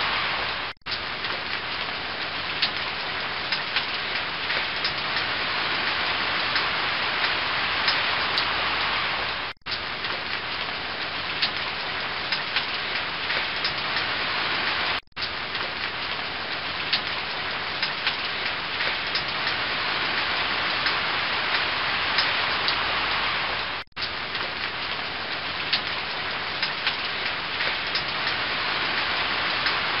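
Waterfall spilling over a weir into whitewater: a steady, dense rush of falling water, with a few tiny splashy ticks. The sound drops out for an instant four times.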